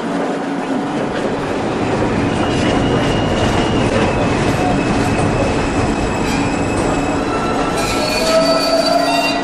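Subway train running on the rails with a steady rumble and hum. Its wheels squeal in thin high tones from about two seconds in, and the squeal is loudest near the end.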